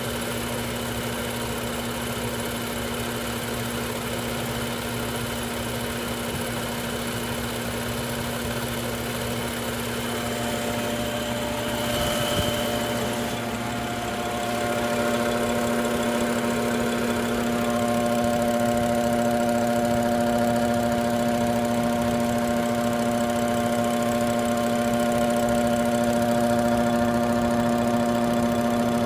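BMW 640 Gran Coupe engine bay with the engine running: a steady hum made of several held tones. A brief click comes about twelve seconds in, and then the sound grows louder, with more tones coming through. This is the strange engine-bay noise the owner is investigating, its cause unknown.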